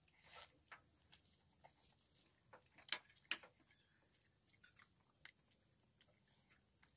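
Quiet chewing and small mouth and eating clicks from a person eating chicken, with two sharper clicks about three seconds in.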